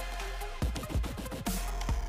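Electronic dance music with heavy kick drums, including a quick run of deep, falling-pitch hits in the middle, over a dense synth layer.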